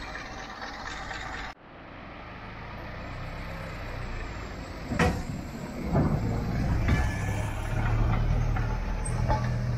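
Ford Model T rail car's four-cylinder side-valve engine running, a steady low hum that grows louder as the car pulls away and passes close by. A few sharp clunks come about halfway through as it rolls along. The sound cuts off abruptly just after the start, at an edit.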